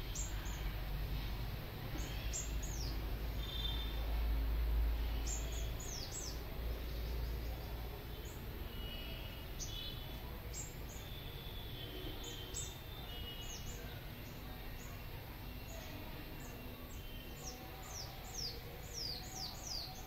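A small bird chirping again and again: short, high chirps that fall in pitch, some in quick runs of three or four, most of all near the end. Under them is a low rumble, strongest in the first few seconds.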